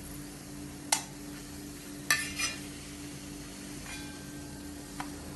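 A steel spoon scraping fried onions out of a brass uruli onto a steel plate, with sharp metal clinks about a second in and twice just after two seconds, and lighter ones later. A steady hiss of hot ghee sizzling in the pan runs underneath.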